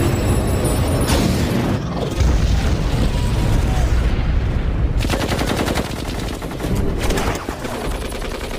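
Action-film battle sound effects: a heavy low explosion rumble, then a long burst of rapid automatic rifle fire a little past the middle.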